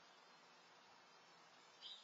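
Near silence: a faint steady outdoor hiss, with a short, high buzzy call starting just before the end.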